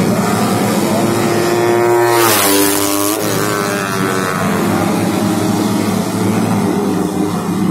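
Racing motorcycle engines at high revs on a circuit. One bike passes close about two seconds in, loud, its pitch dropping sharply as it goes by, while other engines keep running at high revs.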